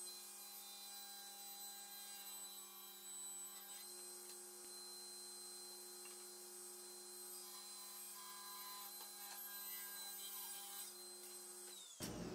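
Faint steady hum made of several held tones, unchanging apart from a small step in pitch about four seconds in, which cuts off abruptly near the end.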